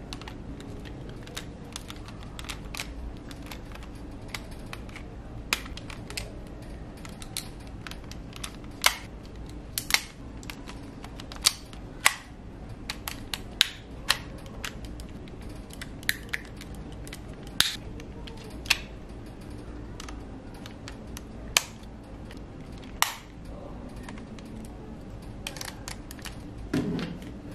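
Hard plastic parts of a Bandai DX ZenKaijuOh robot toy clicking and snapping into place as it is combined, with a couple of dozen sharp clicks at irregular intervals over a faint steady hum.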